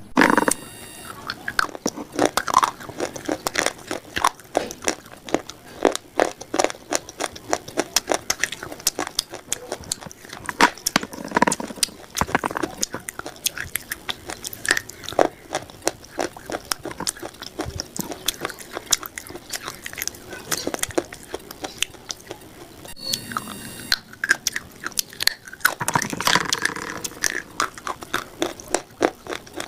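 Close-up biting and chewing of dry, crunchy food, a dense run of sharp crackling crunches that never stops, with a few louder bites scattered through.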